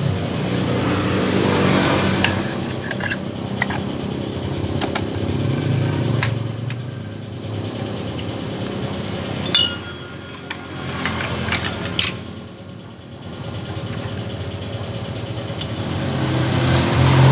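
A motorcycle engine running, its note rising and falling and strongest near the end. Over it come a few sharp metal clinks, about ten and twelve seconds in, as the scooter's CVT variator pulley and belt are handled.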